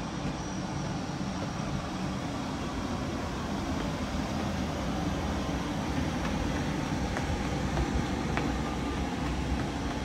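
Steady low rumbling background noise with a continuous hiss, with a few faint taps here and there.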